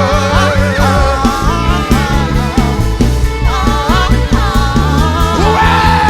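Live worship music: a band with bass and drums playing under a sung melody that bends and glides between notes.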